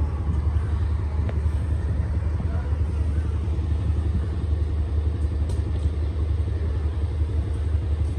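Steady low rumble of a diesel locomotive idling while its passenger train stands at the station, with no change in pitch or level.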